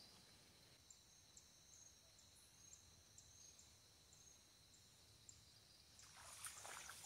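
Near silence, with a faint high chirp repeating about twice a second. Near the end comes a brief rustle of leaves and branches as the line is swung out from under the tree.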